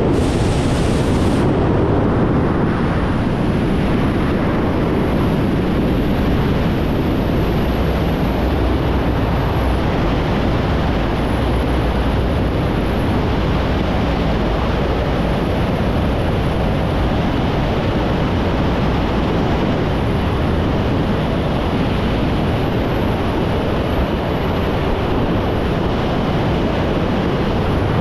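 Freefall wind rushing over a skydiver's helmet-mounted camera microphone: a loud, steady roar, with a harsher gust in the first second or so just after leaving the aircraft.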